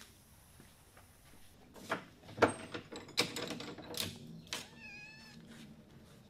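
Knocks and clatter of wood and tools being handled at a workbench vise, loudest about two and a half seconds in. Just before five seconds in comes a short wavering squeal.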